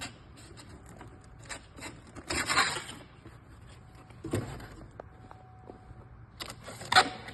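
Cardboard shipper display being handled: a scraping rustle a couple of seconds in, a few light taps and a thump, and a sharp click near the end.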